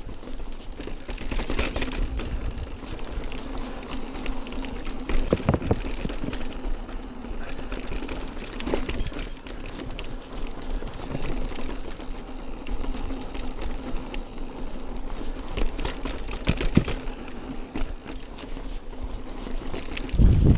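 Mountain bike rolling over a stone flagstone path, the tyres and bike rattling steadily with irregular sharp knocks as it runs over the slabs and their joints.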